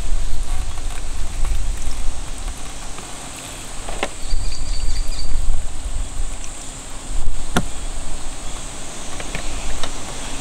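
Wind buffeting the microphone in uneven gusts, over the hiss of water running from a water jug's tap onto hands rinsing vegetables. There are two sharp clicks, one about four seconds in and one near the middle.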